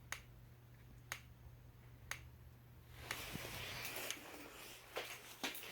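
Fire alarm strobes ticking in sync about once a second as they flash, over a low steady hum. About three seconds in, rustling handling noise joins the ticks.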